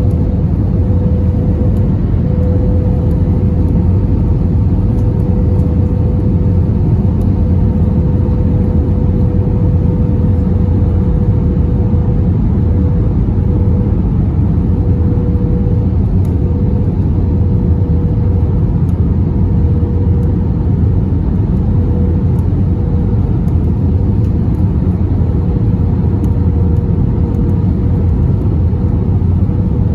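Steady in-flight cabin noise of an Airbus A321, heard from a window seat over the wing: the drone of its CFM56 engines and rushing air, with a steady hum running through it.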